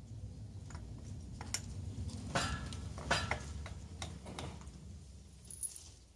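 Metal tools and scooter parts clinking and tapping during hands-on disassembly: a series of irregular sharp clicks, a few ringing briefly, loudest around the middle.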